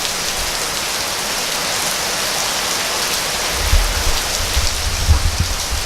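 Heavy rain falling steadily, a dense, even hiss of drops on surfaces. From about halfway through, irregular low rumbling bumps join in.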